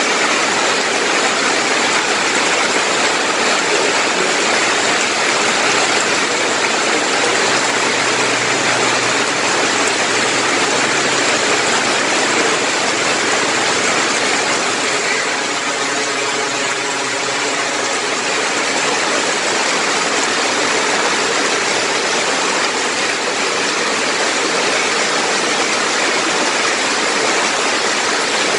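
Heavy rain pouring steadily onto leaves and splashing into a pond's surface, a dense, even hiss of falling water.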